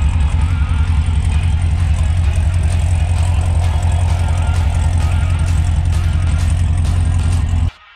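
C7 Chevrolet Corvette's V8 idling through its quad centre exhaust, a steady loud low rumble. It cuts off abruptly near the end.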